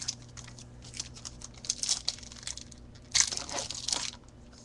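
Foil trading-card pack wrapper being crinkled and torn open, in short rustly bursts with the longest, loudest tearing rustle about three seconds in.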